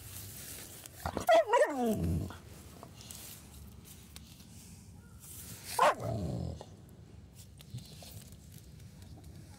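A Saint Bernard vocalising twice, about a second in and again about six seconds in; each call is drawn out for roughly a second and falls in pitch.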